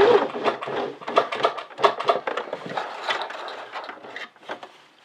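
A domestic sewing machine's motor whirs to a stop right at the start after the last stitches of a seam. Then comes a string of irregular clicks and taps from handling at the machine as the finished fabric scrunchie is drawn out from under the presser foot, growing fainter towards the end.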